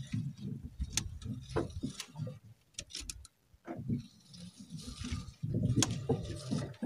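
A fishing longline being hauled in by hand over the side of a small boat: irregular sharp clicks and knocks over a low, uneven rumble.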